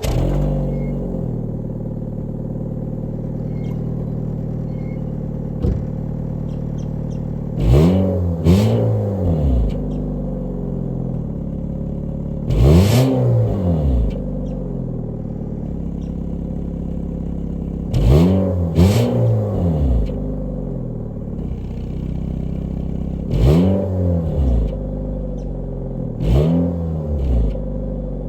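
Nissan car engine catching and then idling loudly, blipped in quick revs several times, often two in a row, the pitch rising and falling with each. The owner says the exhaust needs a muffler.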